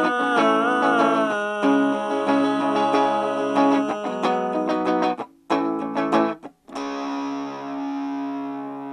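Music: a guitar or similar plucked string instrument playing, with two short breaks after about five seconds, then one long held chord from about seven seconds in.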